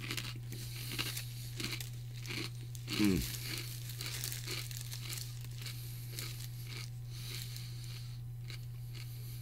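Plastic snack bag of pork rinds crinkling and rustling in a series of short scratchy bursts as a hand rummages in it. A short sound slides down in pitch about three seconds in, over a steady low hum.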